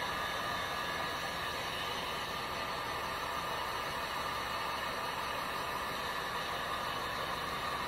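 Handheld heat gun blowing steadily onto a tumbler's wet epoxy coat to warm it, a constant even whoosh of fan and hot air.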